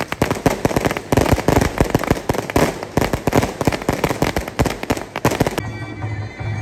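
A string of firecrackers going off in a dense, rapid crackle of bangs that cuts off suddenly about five and a half seconds in. Wind-instrument music with a low drum beat carries on after it.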